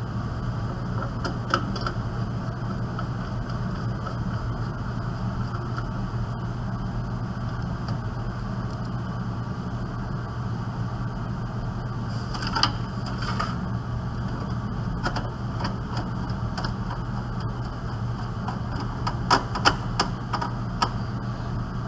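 Scattered light clicks and knocks of a desktop computer's motherboard being fitted back into its case, a few at a time with a small cluster near the end, over a steady low hum.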